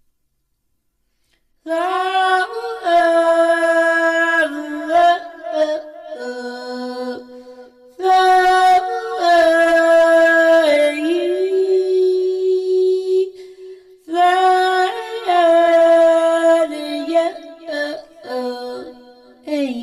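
A woman singing a meditation mantra alone, unaccompanied, in long held notes. There are three phrases, the first starting about two seconds in.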